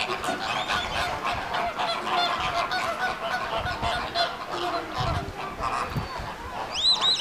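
A large flock of flamingos honking and chattering, many goose-like calls overlapping without a break. Near the end two short, high, arching notes stand out above the flock.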